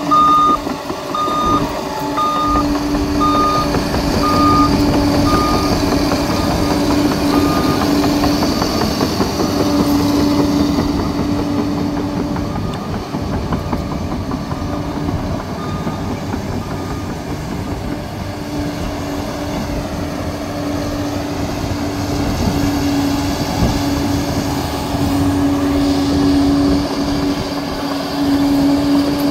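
Liebherr 746 crawler dozer's diesel engine running steadily under load. Its reversing alarm beeps about once a second for the first several seconds, then a few more times, fainter, later on.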